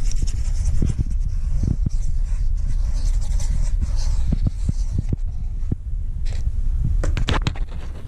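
A cat pawing at a corrugated cardboard scratcher box, giving a quick run of dry scratchy clicks about seven seconds in, over a steady low rumble with a few soft knocks and rustles.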